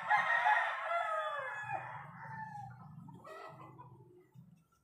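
A rooster crowing: one long call that trails off and falls in pitch about two seconds in, followed by a fainter call about three seconds in.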